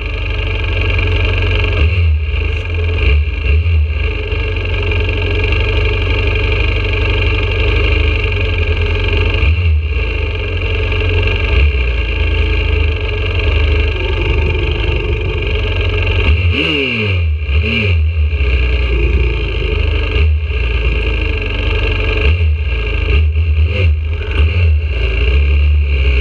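YCF 125cc four-stroke pit bike engine idling close to the onboard microphone, with small bikes idling around it. Several brief throttle blips rise and fall in pitch, the clearest about 17 seconds in.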